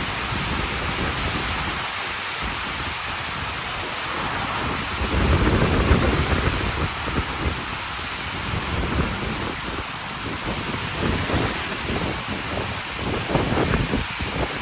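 Heavy monsoon rain with strong wind gusting across the microphone; the gusts swell into low rumbling surges about five seconds in and again near the end.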